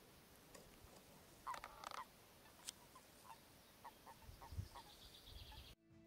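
Common toads calling faintly in a spawning pond: scattered short, soft croaks, with a stronger croaking call about one and a half seconds in. Music begins just before the end.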